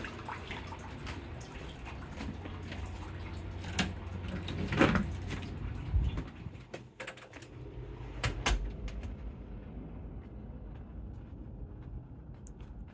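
Steady rain hiss with scattered drips and sharp knocks. There is a louder pitched sound about five seconds in and a short low thump about six seconds in. The higher part of the hiss fades away after about ten seconds.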